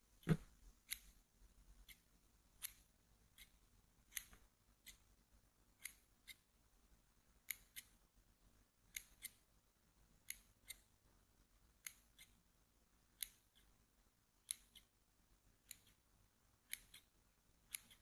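Scissors snipping, soft sharp clicks often in pairs, about one snip every second or so.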